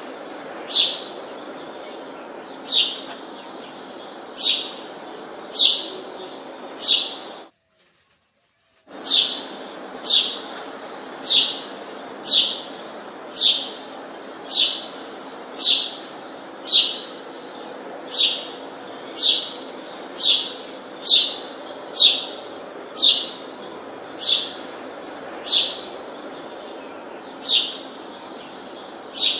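A bird chirping over and over, one short, sharp, falling chirp about every second, over a steady background noise. All sound cuts out for about a second and a half around eight seconds in.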